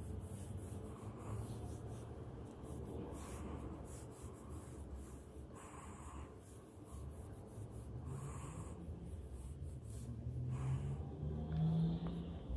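Fine calligraphy brush sweeping short ink strokes across paper: a quick, dry swish with each stroke, coming irregularly several times a second. It is played back at one and a half times speed.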